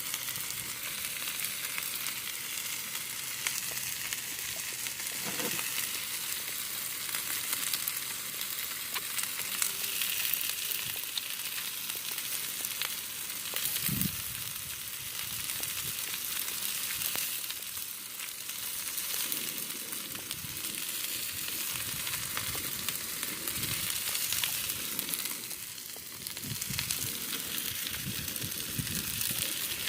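Food sizzling steadily in oil on a propane flat-top griddle, with a few brief dull knocks.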